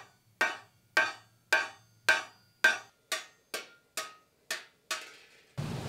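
Hammer blows on iron at a blacksmith's anvil, about two ringing strikes a second, coming a little faster and lighter after about three seconds. Near the end the strikes stop abruptly and give way to a steady rushing noise.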